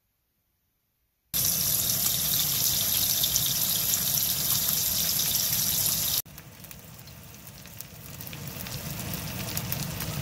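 Herring fillets sizzling as they pan-fry in a non-stick frying pan. The sizzle starts suddenly about a second in and is loud, then about six seconds in drops abruptly to a quieter sizzle that slowly grows louder.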